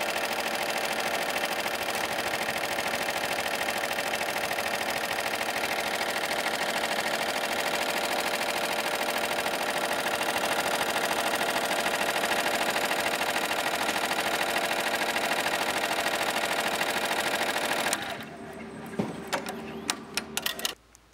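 Barudan multi-needle embroidery machine running steadily, stitching lettering into a hooped shirt. The stitching stops near the end, followed by a few sharp clicks.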